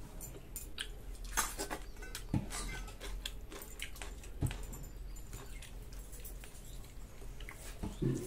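Chewing, with scattered soft clicks and taps of fingers and food against steel bowls, as pakhala (water-soaked rice) and roasted dried fish are eaten by hand.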